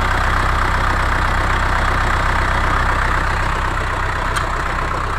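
Subaru Forester 2.0 diesel flat-four turbodiesel idling steadily with a rattling knock from under the bonnet. The noise is placed in the area of the damping flywheel, a sign of a faulty dual-mass flywheel, with the crankshaft pulley also wobbling.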